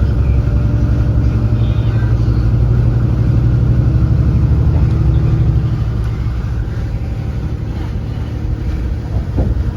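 Boat engine running with a steady low drone, easing off about six seconds in.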